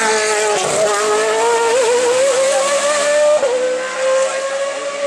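Racing car's engine at full throttle, pulling up through the revs with a sharp drop in pitch at two upshifts, one just after the start and another past the middle.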